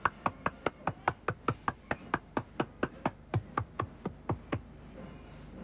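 A hand slapping bare skin in a quick, even rhythm, about five slaps a second, patting white clown makeup on. The slaps grow a little weaker and stop about four and a half seconds in.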